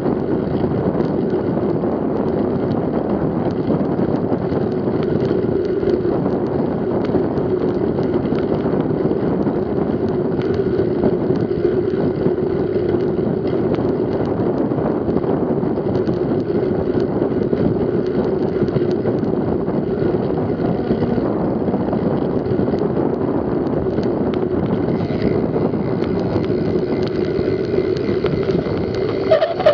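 Steady wind and rolling noise from a mountain bike ridden at speed along an asphalt cycle path: air rushing over the mounted camera's microphone, with the steady hum of the tyres on the tarmac.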